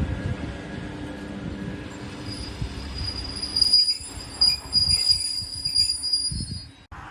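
Train wheels squealing on the rails over the low rumble and knocking of passing wagons. The high, steady squeal sets in about two seconds in and cuts off suddenly near the end.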